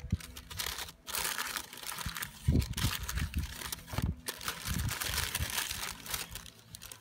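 Paper and plastic crinkling and rustling: a parchment Dutch oven liner and a cake-mix bag handled while dry cake mix is shaken out and spread by hand, with a few soft low bumps in the middle.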